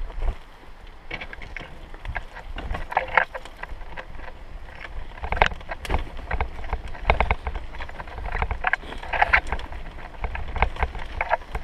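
A vehicle jolting along a badly rutted dirt road: irregular knocks and rattles over a steady low rumble.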